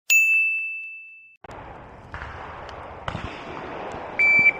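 Electronic shot timer beeping: a high beep about a second long that fades out, then a shorter, slightly lower beep near the end.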